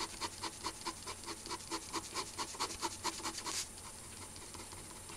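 Black ballpoint pen scratching on paper in quick back-and-forth hatching strokes, about five strokes a second, stopping about three and a half seconds in.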